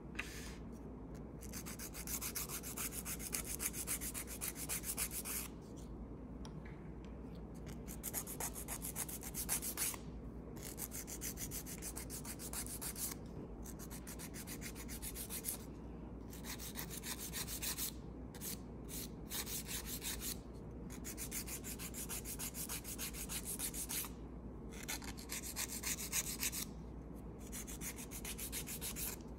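A nail file rubbed back and forth across a fingernail in quick strokes. The filing comes in bouts of a few seconds with short pauses between them.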